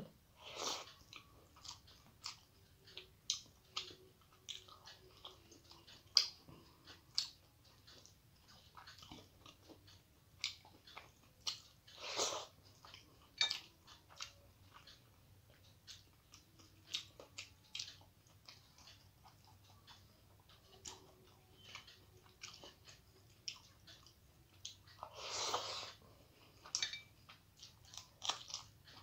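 Close-up mouth sounds of a person eating rice mixed with masoor dal by hand: soft, irregular wet chewing clicks and smacks. There is a louder smack about twelve seconds in and a longer, louder mouth sound near the end.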